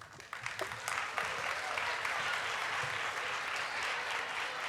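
An audience clapping. The applause builds over the first second and then holds steady.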